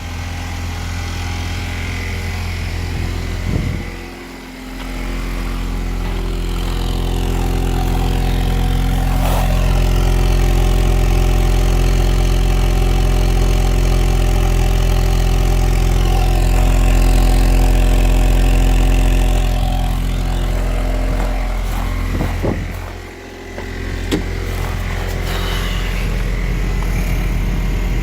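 1998 Chevrolet Cavalier Z24's 2.4-litre twin-cam four-cylinder engine running with a rod knock, its revs changing a few times and the level dipping briefly twice.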